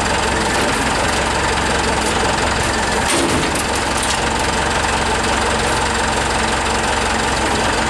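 Forklift engine running steadily at idle, with a few light clicks about three seconds in.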